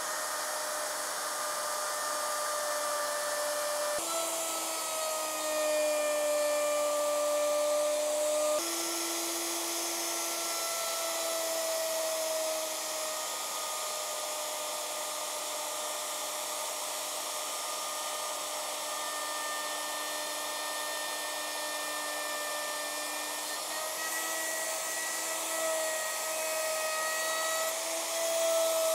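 Electric plunge router running steadily, its straight bit cutting a rebate into a plywood board. The motor's whine dips a little in pitch at times as the bit takes load.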